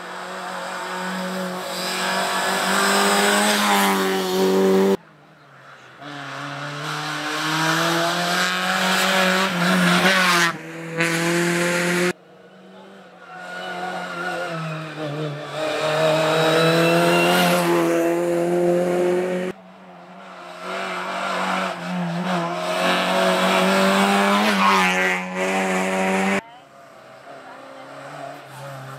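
Rally car engine driven hard on the stage. Its pitch climbs for several seconds at a time and then cuts off sharply at each lift or gear change, about every five to seven seconds, as the car works through the bends toward the corner.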